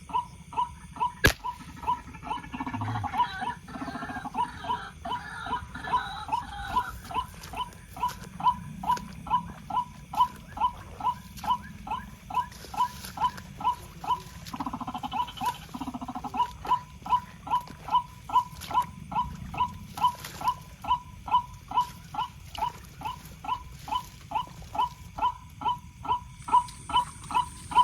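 A short call repeated at an even, steady pace of about twice a second. About a second in, a single sharp crack cuts across it.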